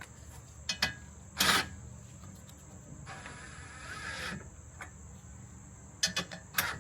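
A few sharp knocks and clicks of hand work on metal as a mounting bolt is worked through the intercooler bracket, with a longer scraping rub in the middle. A steady high chirring of crickets runs underneath.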